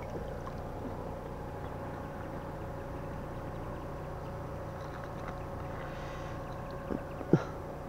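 A steady low hum with a few fixed tones in it, unchanging throughout, and one brief sliding squeak about seven seconds in.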